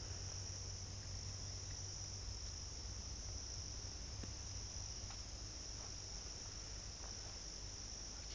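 Steady high-pitched insect chorus in woodland, over a low rumble.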